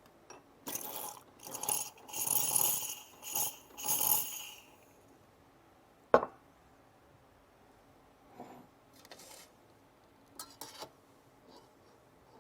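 Clinking and scraping of metal and crockery coffee kit being handled, a run of ringing scrapes and clinks in the first few seconds. A single sharp click comes about six seconds in, then a few light knocks.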